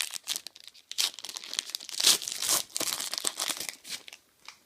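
A trading card pack's wrapper being torn open and crinkled by hand, a dense rustle loudest about two seconds in that dies away near the end.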